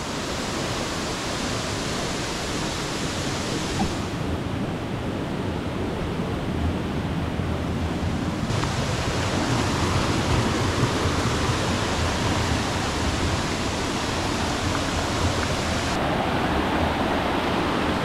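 Waterfall's falling water rushing in a steady, even hiss with no breaks.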